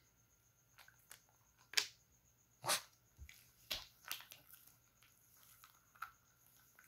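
A Shih Tzu x Pekingese dog eating small round Eggnog cookies off a plastic sheet: a run of sharp crunches and clicks as it bites and chews, the loudest two close together about two and three seconds in.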